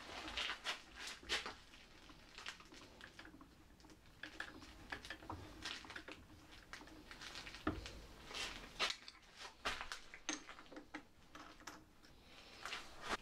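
Faint, irregular metallic clicks and scrapes of hand work at a drill press: the chuck is turned by hand with a small cutter against an aluminium pulley wheel. The sharpest clicks come a little past halfway.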